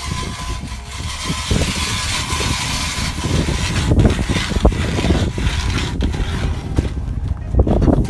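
Hand-crank ice auger being set down and cranked into lake ice, its blades scraping and crunching through the ice in an irregular run of rasps and knocks. A steady low rumble of wind on the microphone runs underneath.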